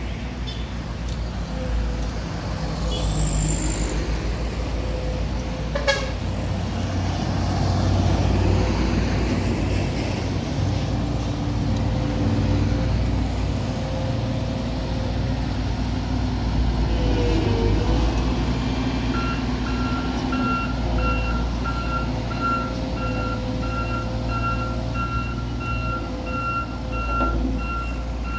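Diesel engines of heavy road-building machinery running steadily with a low drone. From about two-thirds of the way in, a machine's reversing alarm beeps in quick repeated pulses. There is a single sharp click about six seconds in.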